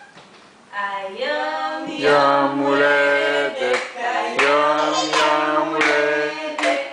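Several voices singing a birthday song together in long, held notes, starting about a second in and getting louder soon after.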